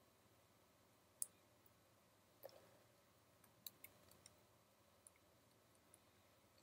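Near silence with a few faint, sharp clicks, the clearest about a second in.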